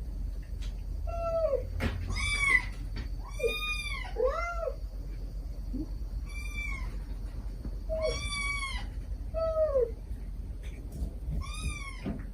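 A mother cat and her kittens meowing: the mother's soft calls to the kittens and the kittens' begging meows. There are about nine separate meows, each rising then falling in pitch, some higher-pitched than others, over a steady low hum.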